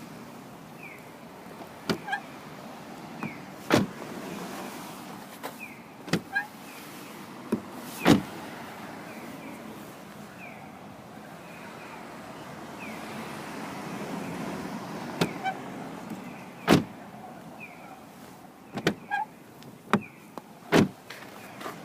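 Renault Lutecia (Clio IV) driver's door hinge and door check giving short high squeaks each time the door swings, with sharp clunks as the door check passes its detents or the door stops. The squeak comes with sub-zero cold and is caused by hardened grease inside the door check.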